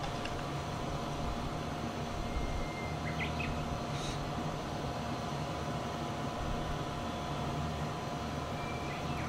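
A steady low outdoor hum with a constant tone. About three to four seconds in, a knife and fork scrape and clink faintly on a ceramic plate while cutting pancakes, and again near the end.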